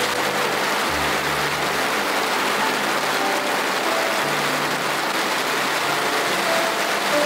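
Steady rain pattering on the fabric of a DOD One Pole Tent S, with soft background music.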